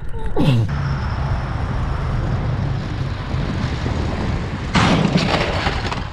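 Motorcycle engine running, with road and wind noise, as a steady low hum. About five seconds in, a loud rushing burst full of rattling clicks lasts about a second.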